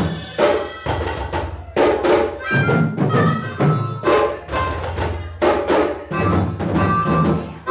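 Live West African drumming: djembe and stick-beaten dunun bass drums playing a driving rhythm, with a harmonica playing held notes over the drums in stretches.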